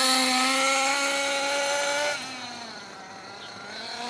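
Alpha Plus two-stroke nitro glow engine in an RC buggy, running at part throttle, then let off about two seconds in: the pitch falls and the sound fades, rising again near the end as the throttle comes back on. The engine is being broken in on a rich needle setting, still blowing smoke.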